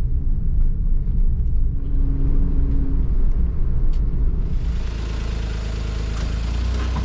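Low rumble of a car on the move, road and engine noise. It turns steadier, with more hiss, about two-thirds of the way through, and cuts off abruptly at the end.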